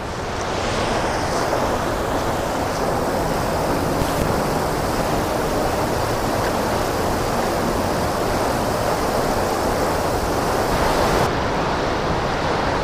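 Steady rushing noise of the Great Falls of Paterson, water pouring behind and under the ice of the frozen falls.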